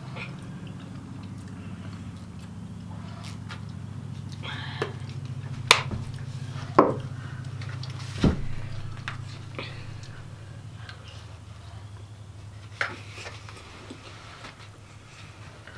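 Spoons clicking and scraping against bowls during a meal, with a few sharp knocks in the middle and another near the end, over a low steady hum.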